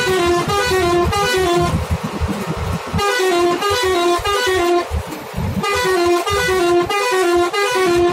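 Bus's musical horn playing a quick tune of stepping notes, repeated three times in a row, over the low rumble of the bus engine.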